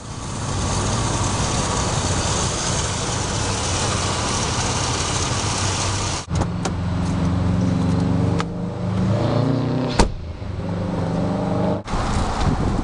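Car engine running close by, steady at first, its pitch rising briefly about three-quarters of the way through, with one sharp click just after.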